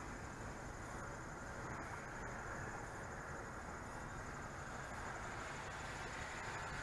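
Faint steady outdoor background noise, with a thin high-pitched, evenly pulsing trill above it.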